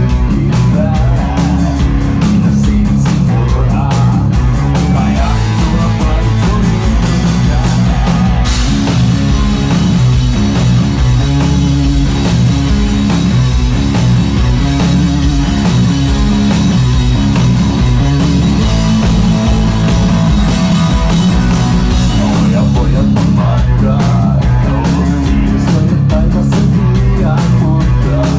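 Heavy metal band playing live on stage: electric guitar, bass guitar and drums, loud and continuous. The sound gets brighter in the treble about eight seconds in and eases back about twenty-two seconds in.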